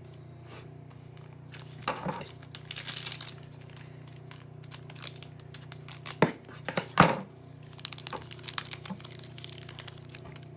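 A trading-card pack wrapper being torn open and crinkled: rustling and tearing early on, two sharp snaps past the middle that are the loudest sounds, then lighter crinkling near the end.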